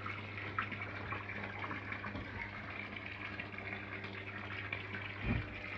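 Water trickling and splashing steadily from a small garden-pond waterfall, over a steady low hum.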